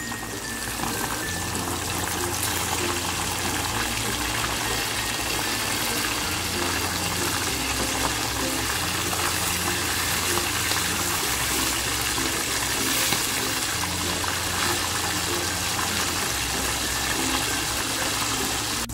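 Hot oil sizzling and bubbling steadily as two whole tilapia deep-fry in a wok.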